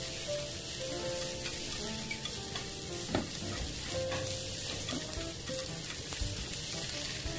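Vegetables and meat sizzling as they are stir-fried in a small pan on a gas burner, tossed with chopsticks, with a sharp tap of utensil on pan about three seconds in.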